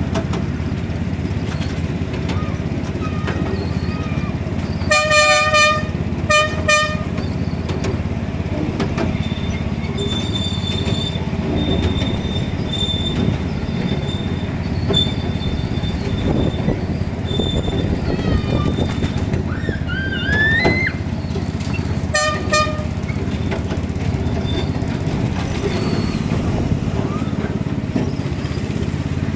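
A miniature ride-on railway's locomotive sounds its horn: two short toots about five seconds in and a third near twenty-two seconds, over the steady low rumble of the train running along the track. A thin high squeal comes and goes in the middle.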